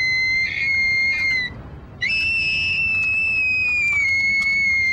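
A person whistling long held notes: a steady high note that breaks off about a second and a half in, then a slightly higher note that slides down and holds.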